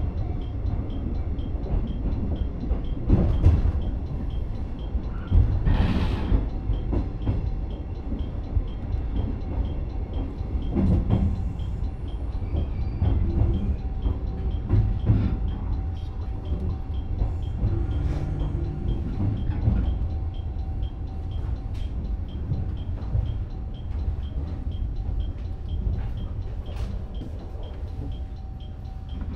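Electric commuter train running along the track, heard from inside the driver's cab: a steady low rumble with occasional knocks of the wheels over rail joints. A faint steady whine comes in during the second half.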